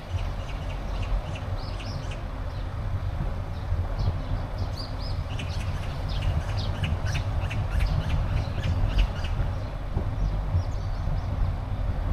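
Birds chirping and squawking over a car's steady low rumble, with a dense run of quick calls about halfway through.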